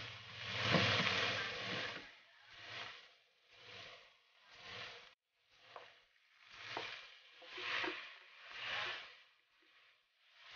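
Ground pork sizzling in a frying pan as it is stirred, the sizzle swelling and fading about once a second.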